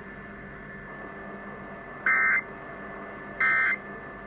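Emergency Alert System end-of-message data tones: two short, harsh warbling bursts about a second and a half apart, following a couple of seconds of steady hum and hiss from AM radio reception.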